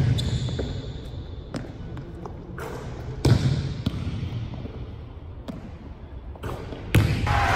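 Basketball bouncing on a hardwood gym floor: about half a dozen separate bounces spread over several seconds, with a louder one about three seconds in and another near the end, echoing in an empty gym.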